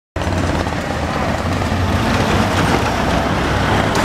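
Street traffic: motor vehicles running past close by, with a steady low engine rumble and road noise.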